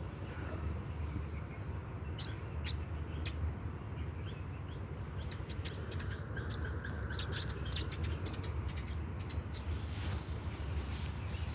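Birds chirping in short, scattered calls, a faint wavering note about six seconds in, over a steady low hum.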